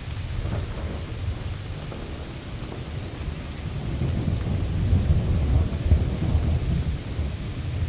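Thunder rolling over steady rain: a deep rumble that swells from about halfway through and is loudest around two-thirds in.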